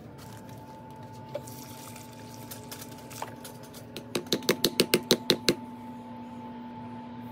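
A quick run of about ten sharp knocks over a second and a half, about four seconds in, as a plastic landscape-light ground stake is knocked down into wet gravel ground. A steady low hum runs underneath.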